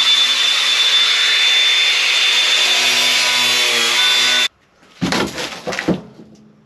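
Cordless power saw cutting through a cardboard box, its motor running steadily with a high whine; the blade is blunt. It stops abruptly about four and a half seconds in, and a few knocks and rustles of cardboard and packaging follow.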